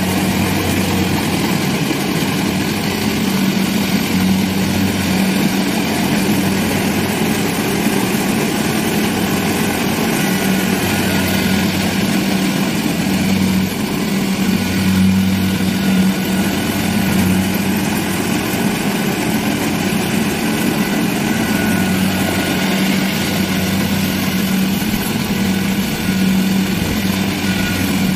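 Kubota combine harvester's diesel engine running steadily as the machine drives through the rice field: an even, constant engine drone that neither rises nor falls.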